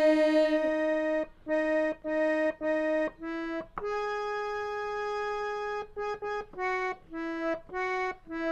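Harmonium playing a slow single-note melody: short notes with brief gaps between them, one long held higher note a little before the middle, then a quicker run of short notes.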